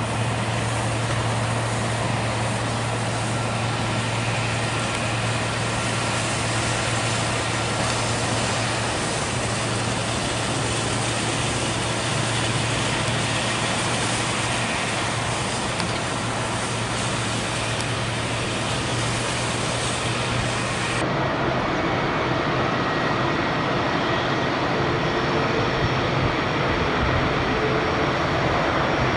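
Airbus A321 jet engines at taxi power heard from a distance: steady engine noise with a constant low drone. The sound changes abruptly about two-thirds of the way through and grows slightly louder near the end.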